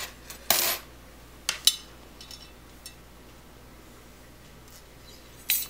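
Metal bicycle spokes clinking against the hub flange and each other as a spoke is fed through the hub, in a few short scattered clinks, the loudest about half a second in and just before the end.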